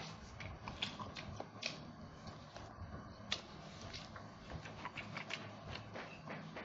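Close-up chewing and lip-smacking while eating roast duck meat and skin, a run of irregular wet clicks and smacks, over a low steady hum.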